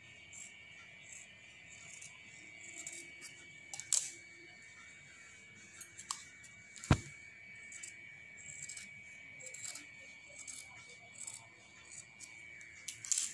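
Steel scissors snipping through petticoat cloth: faint, repeated short snips as the blades close, with two sharp clicks about four and seven seconds in, the second the loudest. A faint steady high-pitched tone runs underneath.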